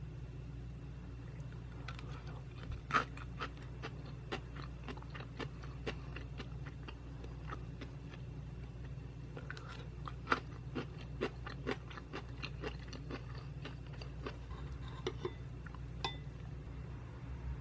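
Close-miked chewing of butter jangjorim bibimbap, rice mixed with soy-braised beef, with many small wet mouth clicks. A steady low hum sits underneath.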